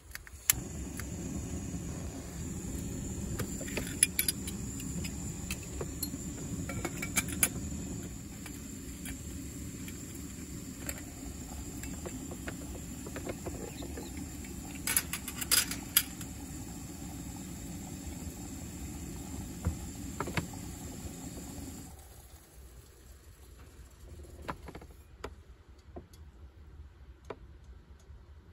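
Gas canister camping stove burner lit with a click, then running with a steady roar and a thin high hiss under a metal mug. Metal clinks come around 4 and 7 seconds in, and again about 15 seconds in as a lid is set on the mug. The burner cuts off abruptly about 22 seconds in.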